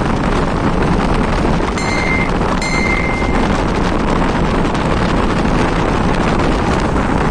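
Wind rushing over the microphone of a moving vehicle, with steady road and engine noise underneath. Two short, clear high-pitched tones sound about two and three seconds in.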